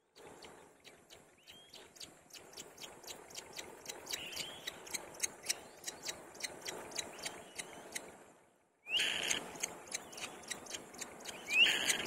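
Kite nestlings begging while being fed: a rapid run of sharp, clicking chirps, about three to four a second, with a few short rising squeals. The sound drops out briefly about two-thirds of the way through.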